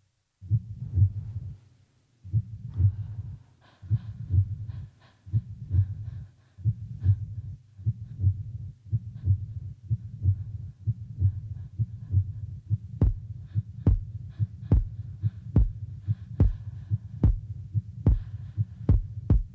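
Heartbeat sound effect in a dance soundtrack: steady, repeating low double thumps under a faint high tone. From about 13 seconds in, sharp clicks join the beats.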